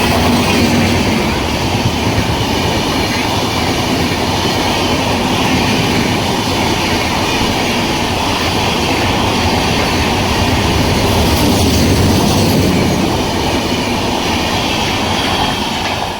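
Passenger express train's coaches rushing past at speed, a steady loud clatter of wheels on the rails. The noise starts to fall away near the end as the rear of the train goes by.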